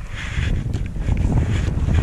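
Wind buffeting the microphone in an irregular low rumble, over the splash and hiss of choppy waves against the side of an inflatable boat.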